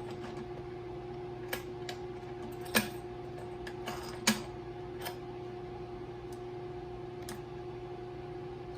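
Scattered sharp plastic clicks and knocks, two louder than the rest about three and four seconds in, as the bidet's plastic mounting nut is hand-tightened onto its bolt. A steady hum runs underneath.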